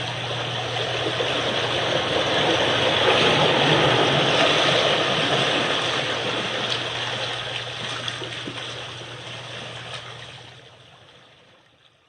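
Water waves washing in a continuous rush. The sound swells to its loudest a few seconds in, then dies away gradually to silence near the end.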